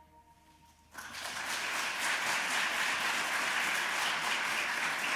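Audience applauding, breaking in suddenly about a second in and continuing steadily, after the faint last trace of a children's choir's final note.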